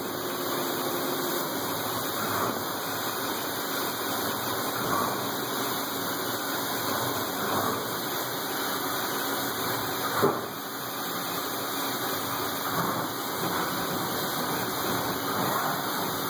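Haas CNC vertical milling machine cutting a metal plate with a small end mill under flood coolant. The spindle, cutting and coolant spray make a steady noise that swells faintly every two or three seconds, with a sharper knock about ten seconds in.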